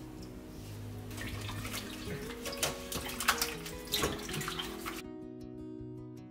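Water splashing in a stainless steel bowl as limes are washed under the tap and scrubbed by gloved hands, with several sharper splashes about two and a half to four seconds in. The water sounds stop about five seconds in, leaving soft background music.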